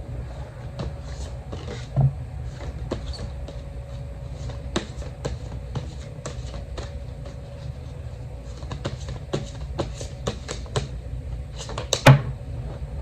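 Tarot cards being handled and laid down: scattered light clicks and taps, with a louder knock about two seconds in and another near the end, over a steady low rumble.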